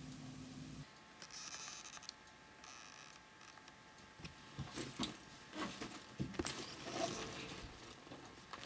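Faint low hum that stops about a second in, then soft rustling and a scatter of light taps and knocks as people move about and the camera is handled.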